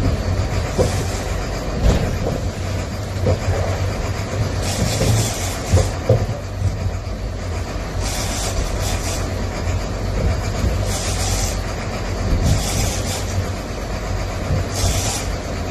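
Fishing boat's engine running steadily under way, heard from inside the cabin, with water rushing past the hull and hissing surges of spray or wash every couple of seconds. A few sharp knocks and rattles in the first half.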